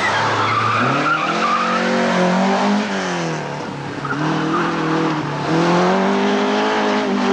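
Rally car engine revving hard through a tight corner, its pitch climbing and dropping several times as the driver accelerates, changes gear and lifts off. Tyres squeal briefly in the first second or so.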